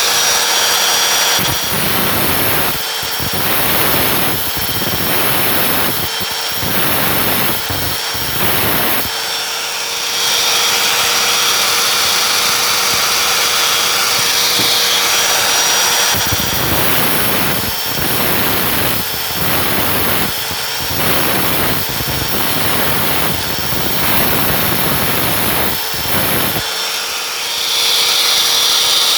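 Angle grinder with a cutoff wheel cutting a socket clamped in a vise. The motor whines steadily while the wheel bites in repeated short strokes of grinding noise, about one a second, for two long stretches. Between them the wheel spins without the strokes. The short passes keep the socket's thin pins from overheating.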